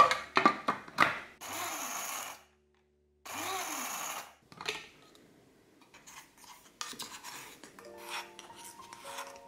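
Clicks as the clear plastic lid is fitted onto an electric spice grinder. Then come two short bursts, about a second each, of the grinder's blades whirring as they pulse dried fruit into powder. After that, a wooden spoon scrapes the powder out of the grinder's stainless steel cup with light rasping and ticks.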